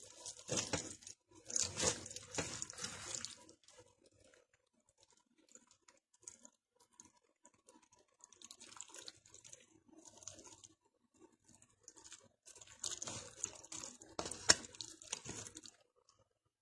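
Metal tongs scraping and clinking in a disposable aluminium foil pan, the foil crinkling as cheesy food is lifted. The noise comes in three bursts with quieter gaps between, and there is one sharp clink in the last burst.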